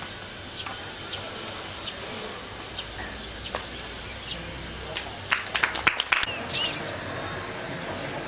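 A steady insect drone, with scattered sharp snaps from a kung fu fan form being performed and a quick run of them about five to six seconds in.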